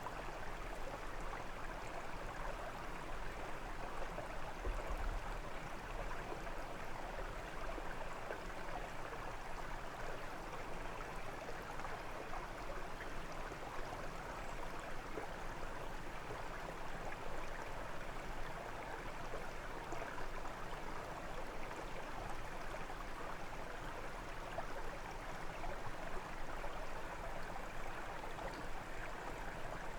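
Brook water flowing and burbling steadily over stones.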